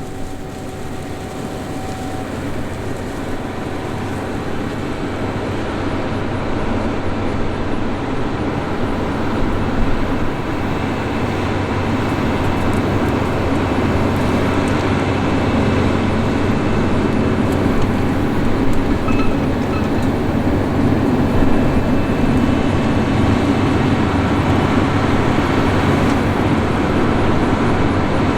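John Deere X9 1000 combine with its 549-horsepower engine running steadily while harvesting corn with a 12-row corn head. The machine noise grows gradually louder.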